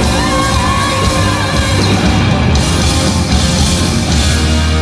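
Live rock band playing loud, with an electric guitar lead over drums and bass. The guitar holds a note that bends up at the start and drops away about a second and a half in.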